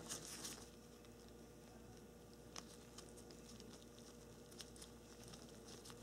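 Near silence: a steady faint hum, with a few faint light clicks from gloved hands handling a plastic automotive wiring connector.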